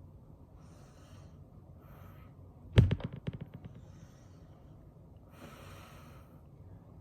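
Heavy breaths through the nose while straining to hold back a burp after drinking sparkling water. About a third of the way in comes a sudden loud knock, followed by a quick run of rattling clicks that fades over about a second.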